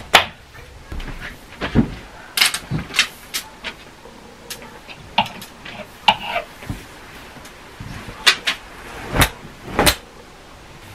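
Clothes being taken out of a wardrobe: hangers and wardrobe fittings clicking and knocking in an irregular string, the two heaviest knocks near the end.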